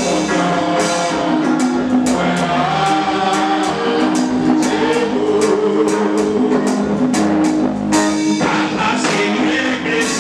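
A man sings a worship song into a microphone over a band with drums keeping a steady beat.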